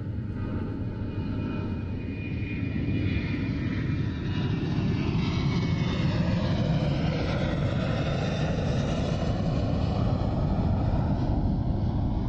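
Jet engine noise of a Grumman A-6 Intruder launching off an aircraft carrier, growing louder over the first few seconds and then holding steady. The jet has engine trouble and cannot climb.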